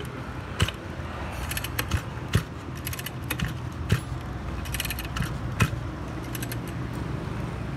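Irregular metallic clicks and light rattles from a small brush cutter engine being worked by hand, as when its recoil starter is pulled slowly to feel the compression, which is fairly good.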